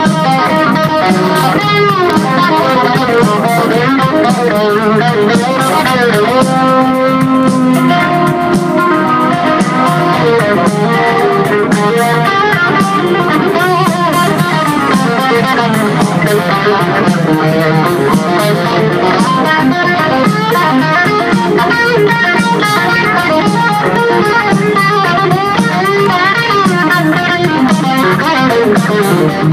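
Live rock band playing loud, with an electric guitar lead of bending, wavering notes over bass guitar and drums.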